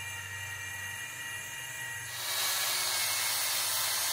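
Ryobi cordless drill spinning a foam buffing pad with cutting compound against a painted helmet shell: a steady motor whine with the hiss of the pad on the paint. About two seconds in it becomes louder and hissier.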